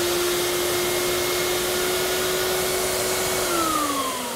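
Ash vacuum motor running with a steady hum and rush of air, then switched off about three and a half seconds in, its pitch falling as it winds down.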